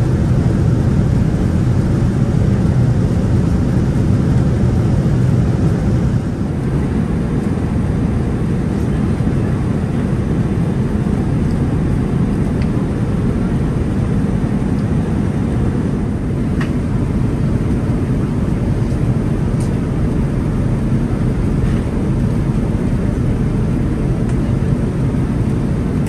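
Steady low rumble of cabin noise inside a Boeing 787-9 airliner, easing slightly about six seconds in, with a few faint clicks.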